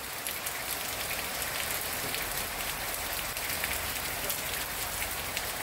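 Heavy rain falling on a wet paved yard: a steady hiss with scattered sharp taps of individual drops.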